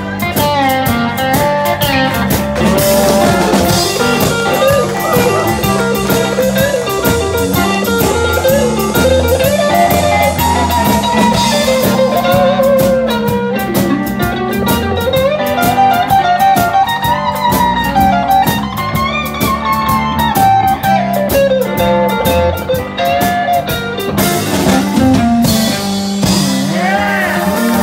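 Live band playing an instrumental passage: strummed acoustic guitar, electric bass and drum kit under a lead line that slides up and down in pitch, with a pedal steel guitar and electric guitar in the line-up.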